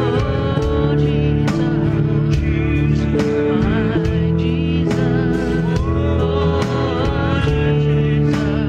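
A worship song: singing over sustained instrumental chords with a steady beat.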